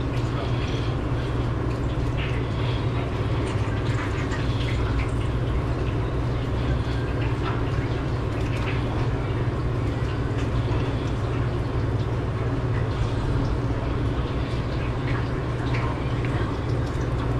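A steady low mechanical drone with scattered light clicks and knocks over it.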